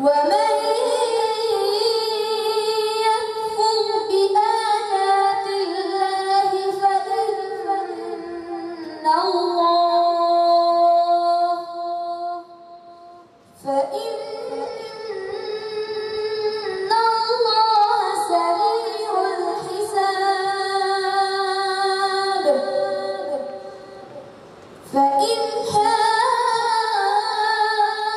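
A boy's voice reciting the Quran in a melodic chanting style, long phrases held on sustained, wavering notes. He pauses for breath about halfway through and again near the end.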